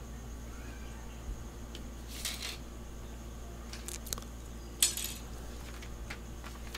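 Metal drafting triangle and small tools being handled on a steel workbench: a few short scrapes and clinks, the loudest about five seconds in, over a steady low hum.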